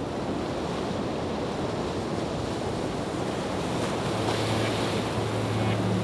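Waterfall pouring down a cliff onto rocks, a steady even rush of falling water. A low steady hum joins about two-thirds of the way in.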